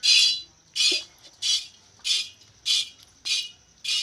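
Milk squirting by hand from a buffalo's teats into a pail: seven short hissing spurts at a steady rhythm, a little under two a second.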